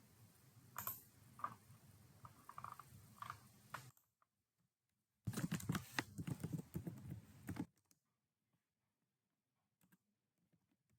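Typing on a computer keyboard. A few scattered key clicks over a faint hiss come first, then a quick run of typing of about two seconds near the middle, then it goes near silent.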